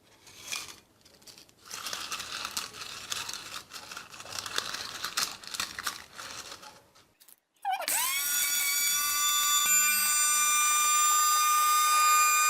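Dry eucalyptus leaves rustling and crinkling with small clicks as they are handled and loaded into an electric grinder. About eight seconds in, the grinder's motor starts with a quick rising whine, then runs loud and steady at a high pitch, chopping the leaves.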